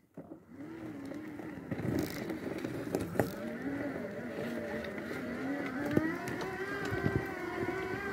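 Extreme X8 power wheelchair's electric drive motors whining as it pulls away, turns and drives along a gravel forest track. The whine wavers in pitch at first, then rises about six seconds in and holds steady as the chair picks up speed, with occasional knocks from the wheels jolting over stones.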